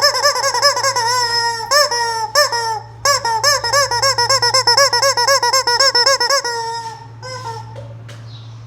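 Toy chicken squeaking in a fast run of high rising-and-falling squeaks, about five a second. The run breaks briefly near the middle, then fades out about two-thirds of the way through.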